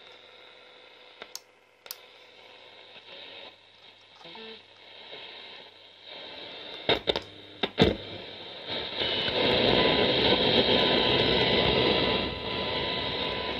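Grundig Satellit 6000 multiband radio's speaker giving faint hiss, with a few sharp clicks as its controls are handled, loudest a little past the middle; then from about nine seconds in a loud rush of static as it is tuned off-station, with a brief whistle in it.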